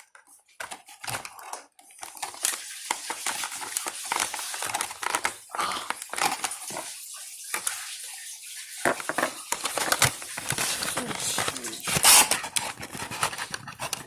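Toy packaging being worked open by hand: plastic and cardboard crinkling, clicking and crackling as the figure is freed, with a louder crackle about twelve seconds in.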